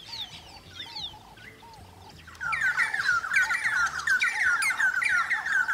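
Scattered soft bird whistles, then a loud, dense chorus of many birds chirping and whistling over one another that starts suddenly about two and a half seconds in.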